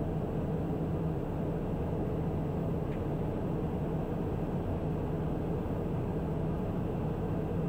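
Daher TBM 960's Pratt & Whitney PT6A turboprop engine and propeller heard inside the cockpit in flight on approach: a steady cabin drone with a constant low hum.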